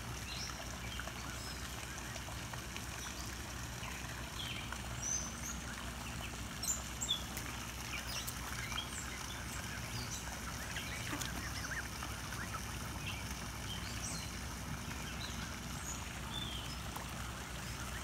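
Birds calling at a pond: many short, high chirps scattered throughout over a steady low background, with two louder calls close together about seven seconds in.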